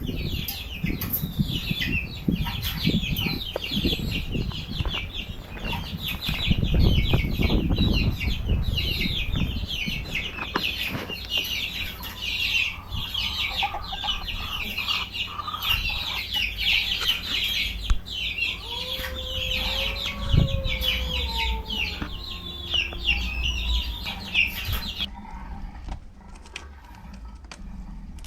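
Chickens clucking, with a dense high chirping running through most of it that stops abruptly near the end. About two-thirds of the way through, one bird gives a long call that falls in pitch.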